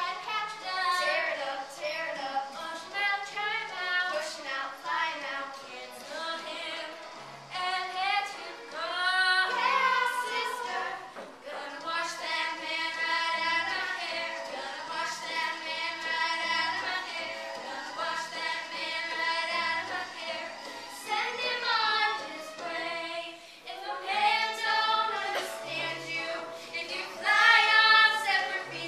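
A group of girls and young women singing a lively show tune together over instrumental accompaniment with low bass notes.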